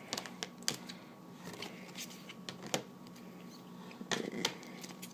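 Trading cards in stiff plastic holders being handled: scattered light clicks and taps, bunched near the start, in the middle and about four seconds in, over a faint steady hum.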